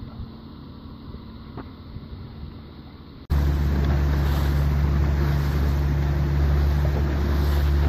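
A faint steady hum at first, then about three seconds in a sudden switch to a motorboat engine running steadily close by, with wind on the microphone.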